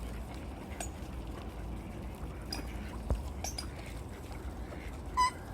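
Ducks and other waterfowl on a lake calling: a few short scattered calls, then one louder honking call near the end, over a steady low rumble.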